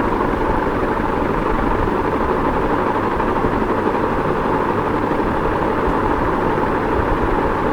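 Ceiling fan running steadily: an even rush of air with a low hum beneath, unchanging throughout.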